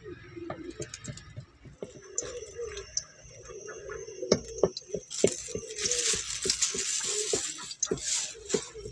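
Cooking handling sounds: scattered clinks, taps and knocks of utensils and dishes, with a louder rustling hiss lasting a couple of seconds around the middle.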